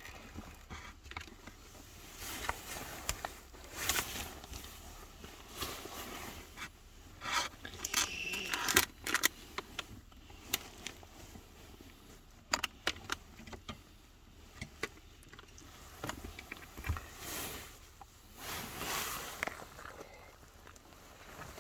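Scattered clicks, taps and rustling of objects being handled, irregular, with a louder cluster of clicks about eight to nine seconds in.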